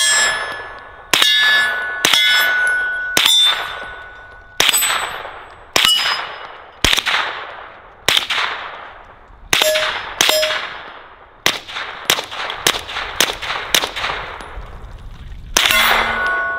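Suppressed carbine fired in a string of about twenty shots, each sharp crack followed by the ringing of a steel target being hit, the ring fading over a second or so. The shots come at irregular intervals, with a quick run of shots about two-thirds of the way through.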